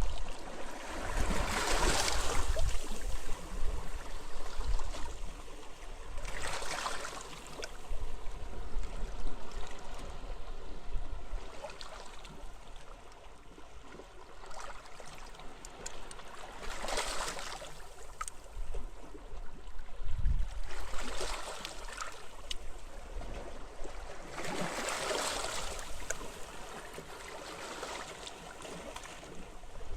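Sea waves washing up on a beach, a wash of surf swelling and falling back every several seconds over a constant hiss. Wind gusts rumble low on the microphone near the start and again about two-thirds of the way through.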